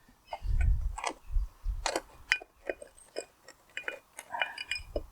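Scattered clicks and small knocks of metal parts and tools being handled while the brake gear is stripped out of a tractor axle case, with a few dull thumps.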